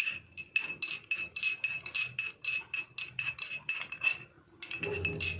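A spoon stirring in a cup of hot tea, clinking against the cup about five or six times a second, each clink ringing with the same high note, as instant kadha powder is mixed in. The clinking stops briefly near the end, then starts again.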